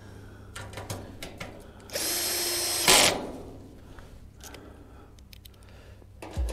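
A power drill runs for about a second with a steady whine and ends in a sharp, loud burst as it stops. Light clicks and knocks from handling parts come before and after it.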